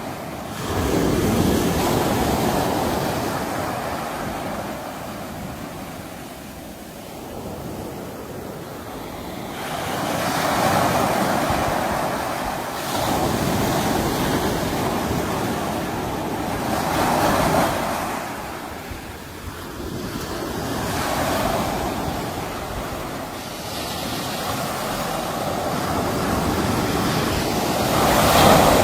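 Sea waves breaking and washing on the shore, swelling and ebbing every few seconds, with the loudest surge near the end; some wind on the microphone.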